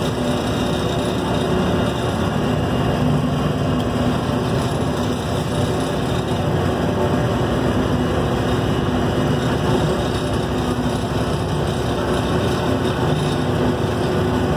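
A vehicle's engine running at a steady speed, with a dense rush of wind and road noise over it.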